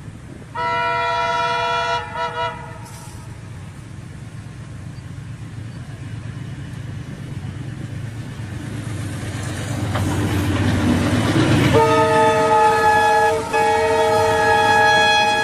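Diesel locomotive's horn, several notes sounding together, gives a long blast and then two short toots. The noise of the train then grows steadily louder as it reaches and passes the level crossing, and near the end the horn sounds again in a long blast that is broken once briefly.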